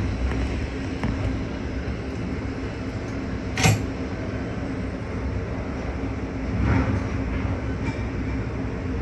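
Steady low rumble with a faint hum from a Panamax ship-to-shore container crane's machinery, heard in the operator's cab as a container is lowered into the ship's hold. A single sharp click comes about three and a half seconds in, and the rumble swells briefly near seven seconds.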